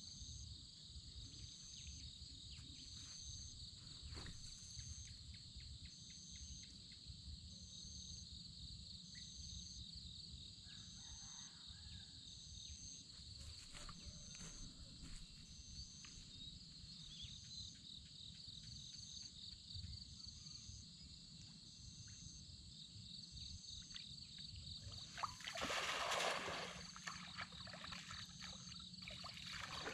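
Faint evening insects: a steady high trill with a second insect chirping about once a second, over a low rumble. Near the end a louder rushing noise lasts about two seconds.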